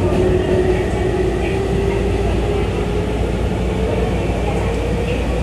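Tobu 9050 series electric train running, heard inside the carriage: a steady rumble of wheels on rail, with the traction motor whine rising slowly in pitch as the train gathers speed.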